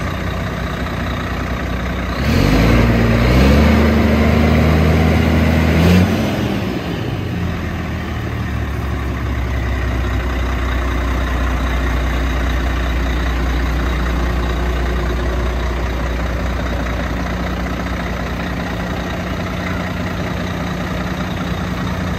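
2002 International 8100 truck's diesel engine idling. About two seconds in it is revved up and held for about four seconds, then drops back to a steady idle.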